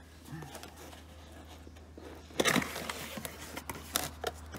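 Cardboard box being opened by hand: a short scraping rip about halfway through as the lid comes free, followed by a few light taps and rustles of the flaps and packing. A steady low hum runs underneath.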